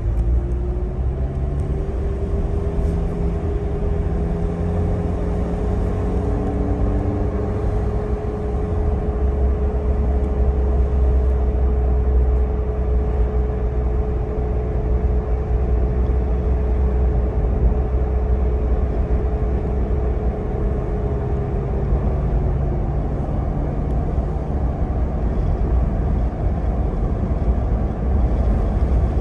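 A car driving, heard from inside the cabin: engine and tyre-on-road rumble, with a steady whine that holds level and fades out about 22 seconds in.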